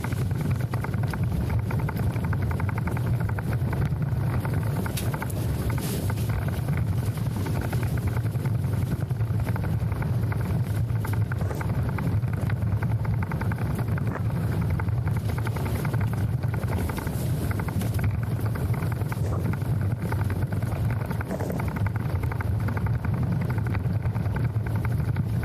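A steady low rumble that holds level throughout, with no distinct events.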